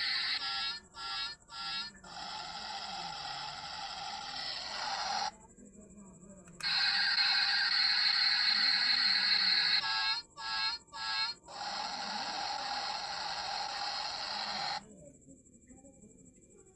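Tinny electronic sound effect from a toy car's small speaker, looping in the same pattern twice: a steady buzzy stretch, three quick stuttering pulses, another steady stretch, then a brief break. It stops near the end.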